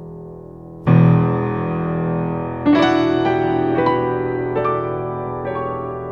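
Background piano music: a low chord struck about a second in, then a slow melody of single notes, each ringing out over the held chord.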